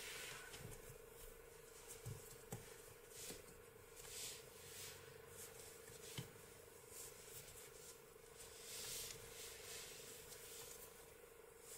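Faint rustling of t-shirt yarn and a few soft ticks as a crochet hook works slip stitches, over a steady faint hum.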